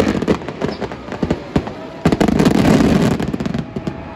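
Fireworks going off in quick succession: many sharp bangs and crackles, thickest and loudest about two to three and a half seconds in, then thinning out.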